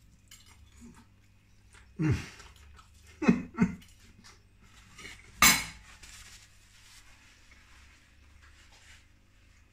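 Cutlery and a plate knocking and clinking while food is eaten. There is a dull knock about two seconds in, two quick knocks a second later, and a sharp clatter, the loudest, about halfway through.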